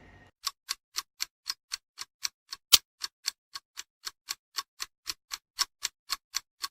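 Clock ticking sound effect over otherwise silent audio, about four ticks a second, with one tick a little under three seconds in louder than the rest; a time-passing transition between scenes.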